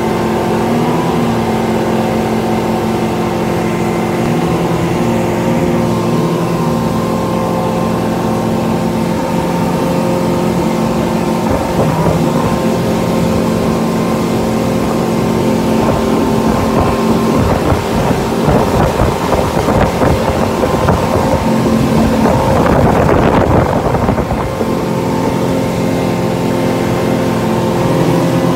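Motorboat engine running steadily at cruising speed, a loud constant drone with several steady tones. In the middle of the stretch wind buffeting on the microphone and rushing water grow louder, then ease off again near the end.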